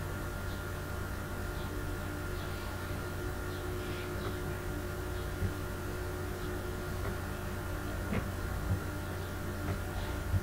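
Steady low electrical hum with faint soft background music, and a few faint clicks scattered through.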